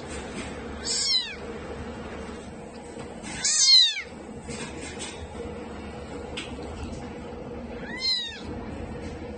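Kitten meowing three times, each call rising then falling in pitch, the middle one the loudest and longest, over a steady low hum.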